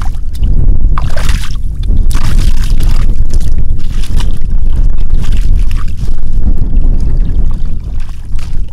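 Muddy water splashing and sloshing in irregular surges, about one a second, as hands and legs work through a shallow flooded puddle. Underneath runs a steady low rumble of wind on the microphone.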